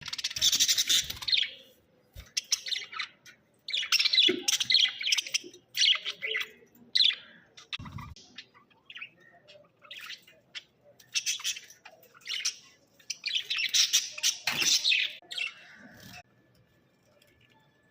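Pet budgerigars chirping and chattering in high-pitched bursts. The chirping goes quiet about two seconds before the end.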